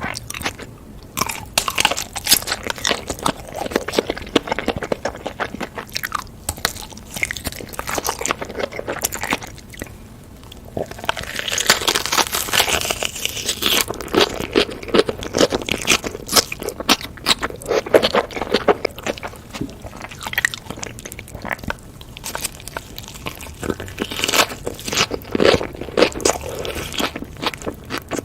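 Close-miked eating sounds: a person biting into and chewing kimchi-wrapped noodles, with many quick, crisp crunches. About eleven seconds in there is a longer hissing stretch of a couple of seconds.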